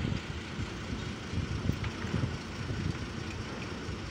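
Diesel engine of a UD boom truck idling steadily.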